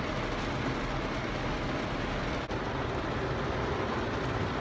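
Heavy rain falling on a car's roof and windscreen, heard from inside the cabin as a steady, dense hiss, with a momentary dropout about halfway through.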